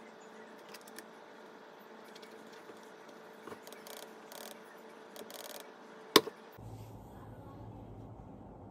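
Laptop keys and touchpad being pressed and clicked a few times over a faint steady hum, followed by one sharp loud click a little after six seconds in. The background then switches abruptly to a lower, different room hum.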